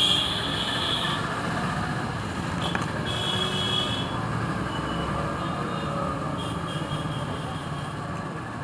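Steady rumble of passing road traffic, with brief high tones that come and go.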